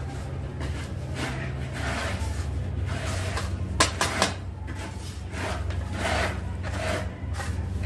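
Gloved hand rubbing and sweeping dry grout powder across glazed floor tiles around a drain grate, making irregular scraping swishes. There are two sharp clicks about four seconds in, over a steady low hum.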